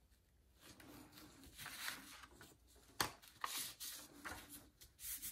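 Faint scratching of a paintbrush laying thick paint on construction paper, then rustling as the paper is folded over and rubbed. A single sharp tap about three seconds in.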